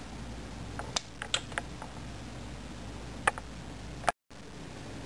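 Several short, sharp plastic clicks, the loudest about three seconds in, as the power switches on Tomix model-train control units are pressed, over a steady low hum.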